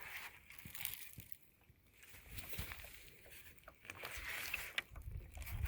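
Faint handling and rustling noises with a few light clicks, over a low rumble of wind on the microphone that swells near the end.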